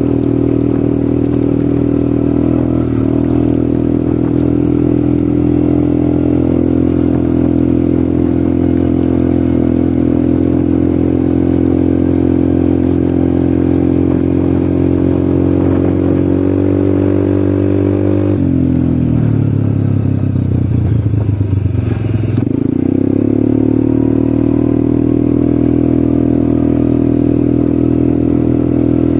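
ATV engine running at a steady speed, its note rising slightly before it drops off about two-thirds of the way through as the throttle is eased, then climbing back up and holding steady again.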